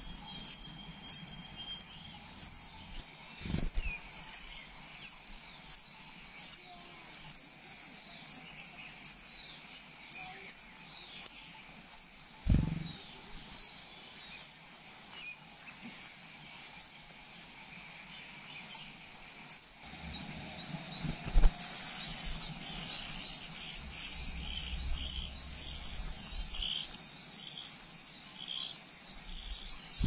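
Nestling songbirds begging: thin high-pitched cheeps repeated about twice a second, then, after a brief pause about twenty seconds in, a continuous high-pitched chatter of begging calls.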